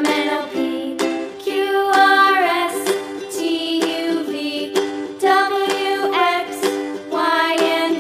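Background music: plucked-string notes in a steady rhythm with a gliding melody line over them.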